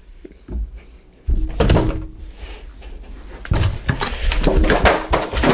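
Rustling and crackling of packaging and tortilla chips being handled in an opened box, starting suddenly about a second in, with a brief low hum of a voice.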